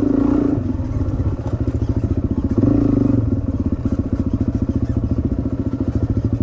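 Dirt bike engine heard from the rider's seat, picking up revs briefly twice, near the start and about two and a half seconds in, then running at low revs with a fast, even pulse while rolling slowly.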